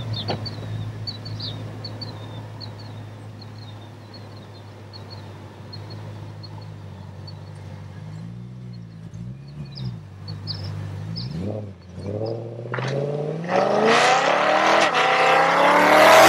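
BMW E92 M3's V8 through a Fi valvetronic exhaust with quad tips: a steady idle, then a few quick throttle blips about halfway, then a hard launch with the pitch rising steadily as it accelerates, loudest at the end. Birds chirp faintly during the idle.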